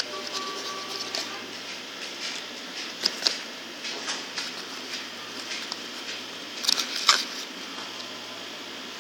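Cardboard and paper packaging being handled inside a tablet's retail box: scattered rustles and light taps as fingers move the inserts and packets, with louder clusters about three seconds in and near the end, over a steady hiss.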